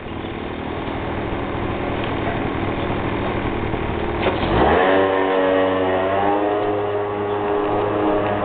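A motor vehicle's engine running close by, growing louder. Its pitch rises sharply about halfway through, as when it accelerates, then holds steady.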